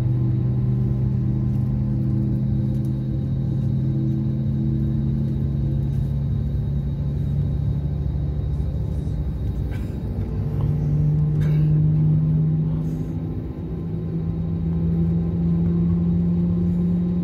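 Jet airliner engines droning, heard from inside the passenger cabin, as the aircraft readies for take-off. The engine tones step up in pitch about ten seconds in and again near fourteen seconds, with a few light cabin rattles around then.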